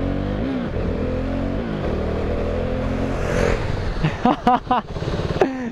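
KTM Duke 390's single-cylinder engine running as the bike is ridden: its pitch dips briefly about half a second in, then climbs again and holds steady, with some wind noise. Brief voices come in after about four seconds.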